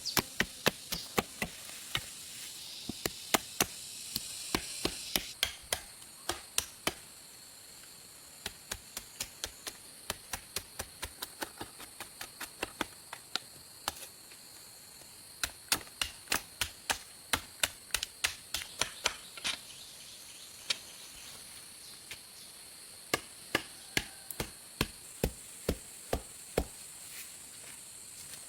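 Repeated chopping strikes, about two to three a second, in runs broken by short pauses. They are most likely a blade hacking wood while building a shelter from forest materials. A steady high insect buzz runs behind them, louder in the first few seconds.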